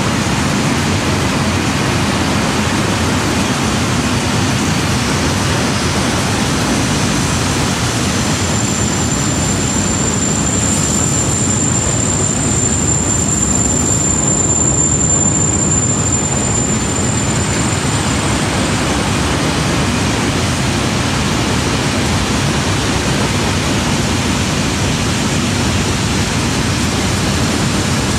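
Train rolling past with a steady, even roar, and a thin high whine heard for about ten seconds in the middle.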